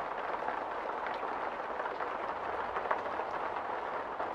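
Heavy rain pouring down on a paved street: a steady, even hiss with scattered ticks of individual drops.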